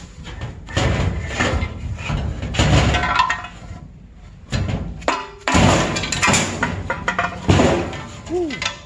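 Irregular metallic bangs and clanks from a Honda rear trailing arm being taken apart, as the hub assembly is knocked and worked loose after its T50 bolts are removed.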